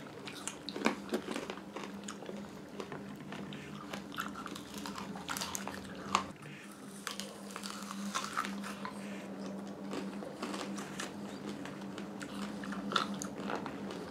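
Candy apples being bitten and chewed: the hard sugar shell cracks and crunches in irregular sharp bites, with wet chewing of the apple in between.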